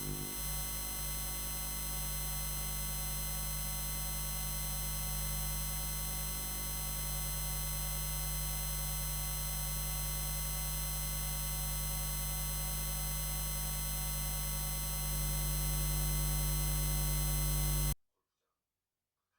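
Steady electrical hum and buzz: a strong low hum with a thin high whine of steady tones above it. It gets a little louder about fifteen seconds in and cuts off suddenly near the end.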